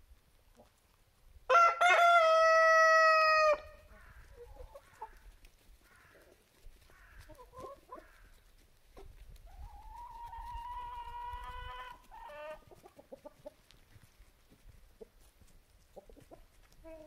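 Rooster crowing twice: a loud crow about a second and a half in, then a fainter, longer crow around ten seconds in.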